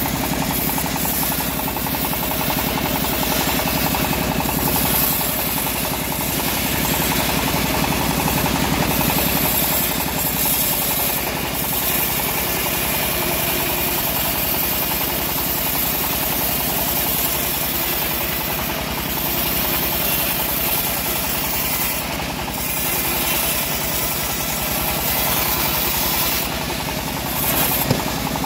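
Homemade engine-driven bandsaw mill running steadily with a fast, even low pulse, its blade sawing lengthwise through a teak log.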